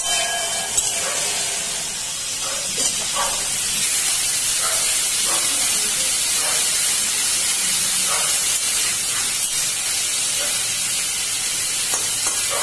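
Prawns and green chillies frying in a little oil in a wok, a steady sizzle, with faint scrapes of a spatula stirring them now and then.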